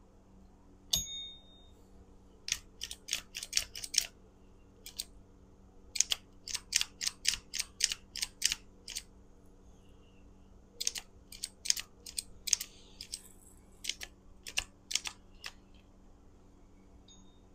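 Quick clusters of sharp, high clicks and taps from a golf cart's plastic forward/reverse switch assembly being handled and fitted into its bracket. A single sharper click with a brief ring comes about a second in.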